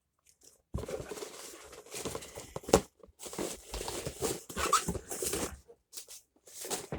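Cardboard packaging being handled and pulled from a box, rustling and scraping in irregular bursts, with a sharp tap just before three seconds in.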